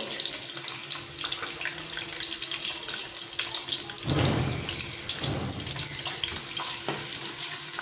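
Cloves, cardamom, almonds and coconut slices sizzling and crackling steadily in hot oil in a steel karahi as they are lightly roasted, with a louder stretch of stirring about four seconds in.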